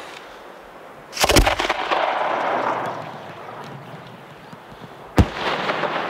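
A 6-inch Parente aerial display shell fired from a mortar. Its lift charge goes off with a boom about a second in. About four seconds later the shell bursts high overhead with a single sharp bang.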